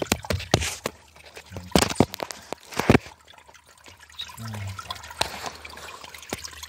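Water trickling and running from a hidden leaking supply pipe in the ground, a leak the plumber suspects is a slab leak. Sharp knocks and scrapes from the phone being handled in the opening stand out over it, loudest in the first three seconds.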